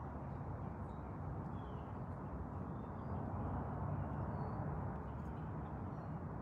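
Steady low background rumble with a few faint, short bird chirps.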